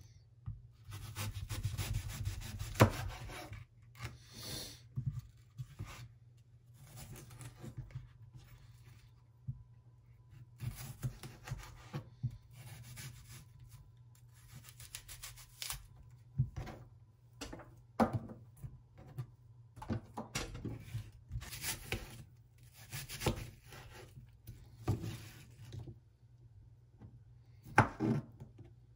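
Chef's knife cutting through an apple on a plastic cutting board: long scraping slicing strokes, then, from a little past halfway, a run of separate chops with the blade knocking on the board.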